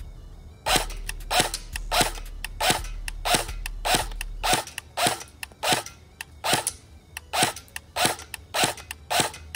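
Airsoft gun firing in semi-auto, about fourteen sharp shots at a steady pace of a little under two a second, starting under a second in.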